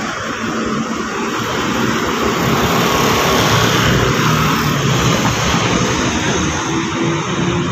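Vehicle passing on a city street: an engine's low hum comes in a couple of seconds in and grows louder over a steady hiss of traffic.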